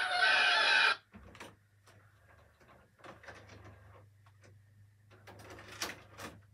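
An animated film's storm-scene soundtrack with music cuts off suddenly about a second in. A VCR mechanism then gives a series of small clicks as the videocassette is ejected, with two louder clacks near the end.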